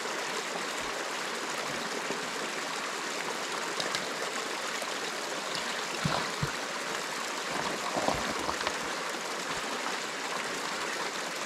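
Mountain stream running over rocks, a steady rush of water, with a few soft knocks about six and eight seconds in.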